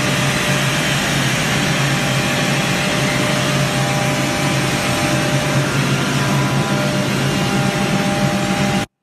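132 kW variable-frequency permanent-magnet screw air compressor running loaded at full speed: a loud, steady hum and hiss with a few steady tones over it. The sound cuts off suddenly near the end.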